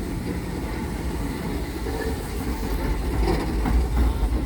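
Southern Railway 4501, a 2-8-0 steam locomotive, running with a steady low rumble.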